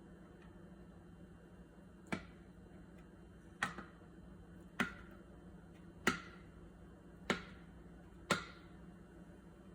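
A knife coming down on a cutting board while slicing, six sharp taps about a second apart, over a faint steady hum.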